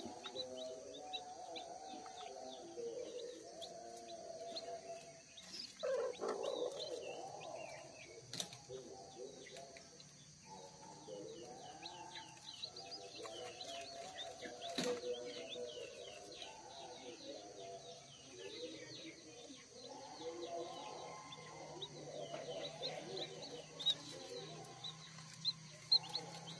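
Day-old kampung chicks peeping in the nest: many short, high, falling peeps, on and off throughout. A lower continuous babble runs underneath, with a couple of sharp clicks.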